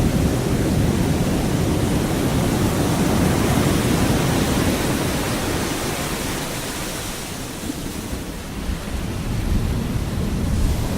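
Pacific Ocean surf washing onto a beach with wind, a steady rushing roar. The wash eases about two-thirds of the way through, then the next wave builds near the end.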